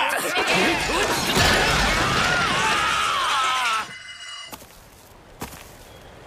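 Cartoon commotion: a dense clatter of crashing and shattering thrown objects under a man's rising and falling yell and crowd shouting. It cuts off suddenly about four seconds in, leaving a quiet stretch with a faint knock.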